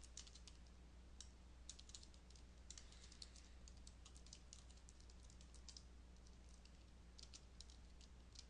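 Faint typing on a computer keyboard: quick clusters of key clicks with a short lull near the end, over a low steady hum.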